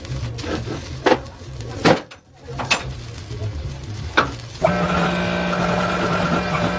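Workshop sounds: a few sharp knocks over a low hum, then a steady machine drone starts about two-thirds of the way in and runs on.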